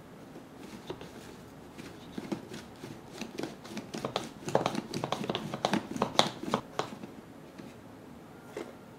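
Takara Tomy Kurunde Korokoro Odango Party plastic dango roller worked back and forth by hand: a quick run of plastic clicks and knocks as the bunny-shaped dome slides over its base, rolling rice-flour dough into a ball. The clicks come faster and louder in the middle, then tail off, with one last knock near the end.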